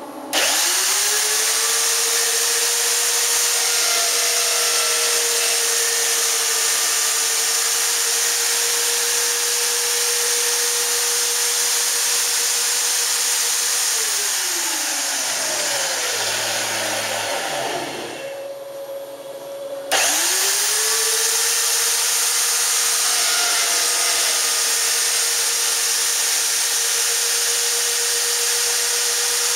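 Spindle motor of a homemade CNC router drilling holes for shelves: it spins up with a quickly rising whine and a loud hiss and runs steady, winds down with a falling pitch about 14 s in, stops for a couple of seconds, then spins up again about 20 s in and runs steady.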